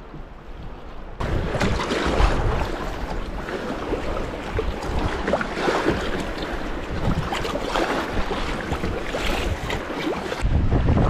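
Sea kayak paddle strokes splashing in choppy sea water, waves slapping around the hull, over wind noise on the microphone. The sound jumps suddenly louder about a second in, and near the end a heavier low wind rumble on the microphone takes over.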